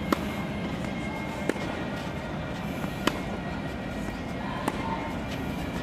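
Tennis balls struck by rackets during a baseline rally: four sharp hits about a second and a half apart, the first and third loudest.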